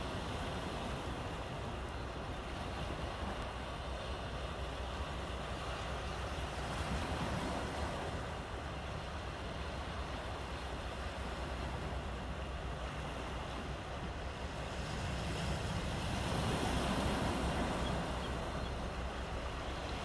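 Small sea waves washing in among large rounded boulders: a steady rush of surf that swells louder near the end.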